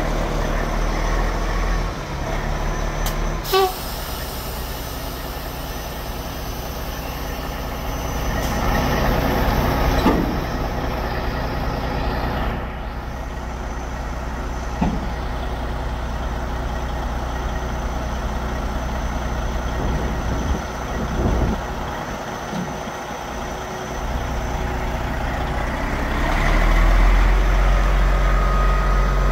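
Detroit Series 60 inline-six diesel of a 1993 Freightliner FLD120 dump truck running steadily while the raised dump bed is lowered on its hydraulic hoist. There is a short click and air hiss about three and a half seconds in, and the engine gets louder near the end.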